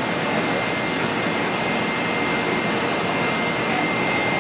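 Steady hiss of steam venting from NSWGR C36 class steam locomotive 3642 as it stands at the platform, with a faint steady high tone running through it.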